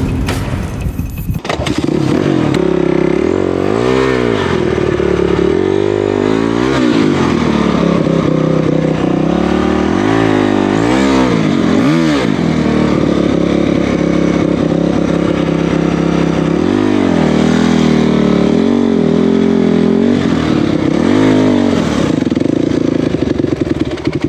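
An off-road vehicle's engine running hard, its pitch swelling up and back down repeatedly as the throttle is worked, over a steady drone.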